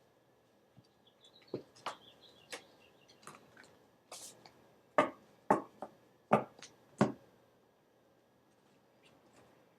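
Tarot cards being handled: light clicks and a brief rustle of card stock, then four sharp clicks in about two seconds as cards are set down or tapped on a hard surface.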